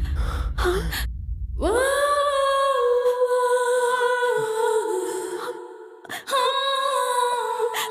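A voice sings long held notes with almost no accompaniment, the pitch stepping down a little midway and pausing briefly near the end. A low rumble lies under the first second or so.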